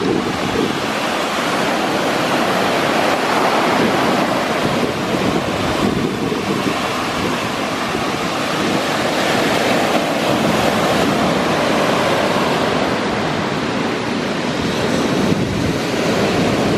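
Rough sea surf washing in continuously, with wind buffeting the microphone.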